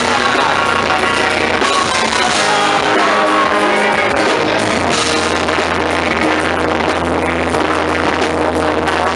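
A live rock band plays with electric guitar, bass and drums, under sung vocals into microphones.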